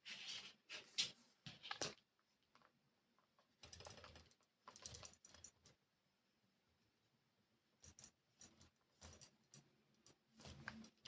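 Cloth wiping small desk items: short rubbing strokes and light clicks and taps as the items are handled, coming in three groups with pauses between.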